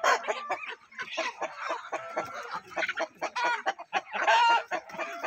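A flock of desi chickens clucking and calling in short, overlapping notes as they settle onto tree roosts at dusk, with one louder, drawn-out call a little after four seconds in.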